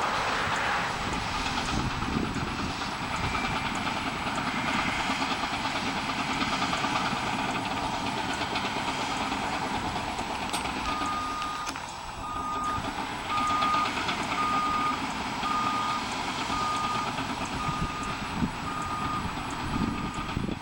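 Heavy construction machine running, with its backup alarm starting about halfway through and beeping steadily about once a second as it reverses.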